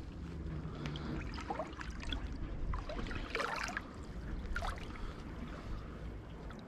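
Shallow seawater trickling and dripping among shore rocks, with many small scattered drips and gurgles over a low steady rumble.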